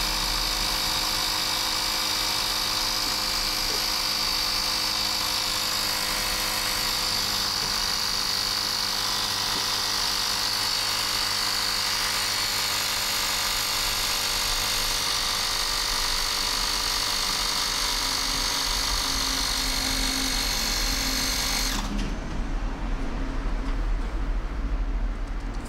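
Bosch EasyPump cordless mini compressor running steadily with a high whine, pumping air into a rugby ball as the pressure builds. It cuts off suddenly near the end, followed by a few clicks and handling knocks.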